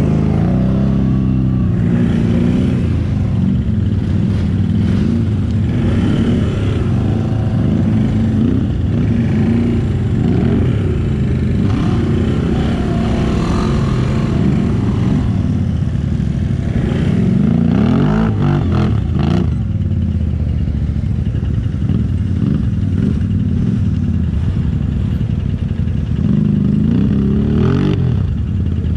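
ATV engine running hard off-road, its pitch rising and falling as the throttle is worked, with a couple of knocks about two-thirds of the way through.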